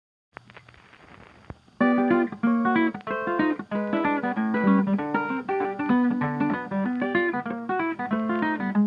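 Background music of plucked acoustic guitar, coming in about two seconds in after a short, nearly silent lead-in.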